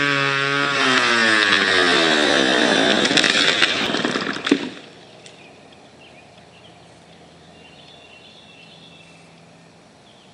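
Homelite XL two-stroke chainsaw running at a steady pitch; just under a second in, the pitch starts to fall. A sharp click comes about four and a half seconds in, and the engine stops just after it. Only faint outdoor background remains afterwards.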